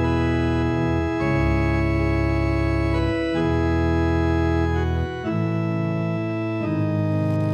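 Organ chords held and changing about every one and a half to two seconds, five chords in all, as the instrumental introduction to a hymn.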